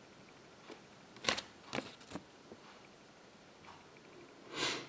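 Faint handling of a folded paper leaflet: a few soft crinkles and clicks in the first half as it is turned over, and a short rustle near the end.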